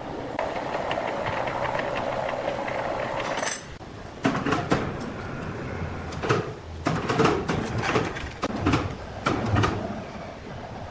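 Sawmill machinery running steadily, then stopping abruptly about three and a half seconds in. A run of irregular sharp knocks and clatters follows, like wooden pieces striking one another.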